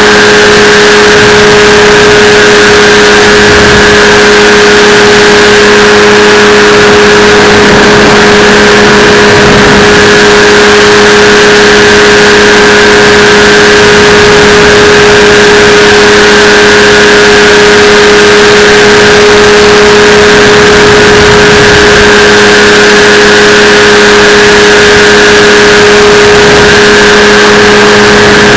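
A Drift X170 powered parachute's engine and propeller running steadily at high power: a loud, even drone whose pitch holds constant.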